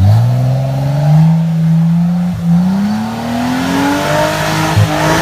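Car engine accelerating: its pitch rises steadily, with a short break about halfway through, like a gear change, before it climbs again.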